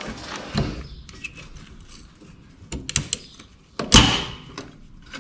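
Sharp metallic knocks and clatter of hand tools working at bolts under a vehicle, with a few clicks near the middle and the loudest clank about four seconds in.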